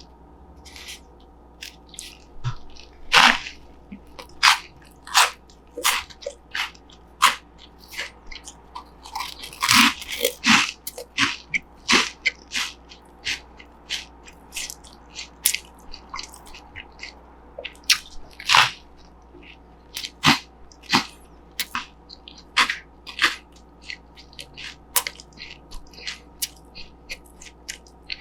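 Close-up crunching and chewing of crunchy Cheetos corn puffs in a burger bun: irregular sharp, crisp crunches, several bites coming thick and fast about a third of the way in.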